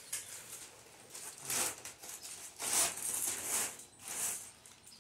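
Black plastic mailer bag crinkling and rustling in several bursts as a cardboard box is pulled out of it.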